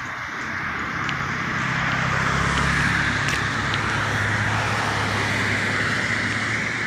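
A car on the street close by: its engine hum and tyre noise swell about a second in and stay loud.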